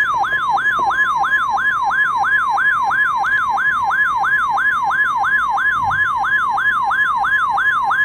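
Electronic alert siren: a quick sweep falling in pitch, repeating about three times a second over a steady tone, loud and unbroken until it stops near the end.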